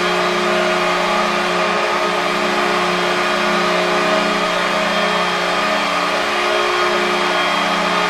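Kahlenberg T-3 air horn sounding one long, steady blast as an ice hockey goal horn, signalling a goal.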